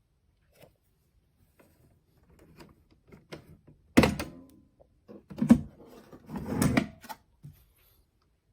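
Several knocks and clunks in a small room, the loudest a sharp thump about four seconds in, followed by two more heavy clunks about a second apart.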